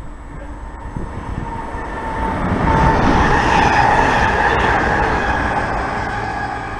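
Electric multiple unit passing close at speed: the rumble and wheel noise build to a peak about three seconds in, then fade.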